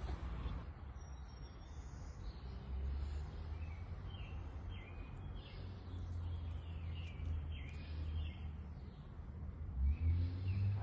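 Birds chirping in short repeated calls over a steady low rumble of background noise, which swells louder near the end.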